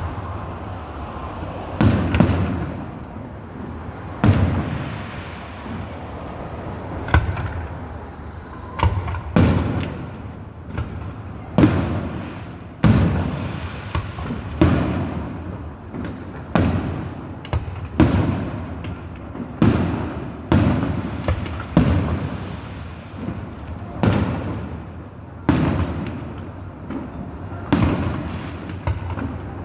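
A fireworks display: aerial shells bursting in a steady run of loud bangs, about one every one to two seconds. Each bang trails off in a rumbling echo.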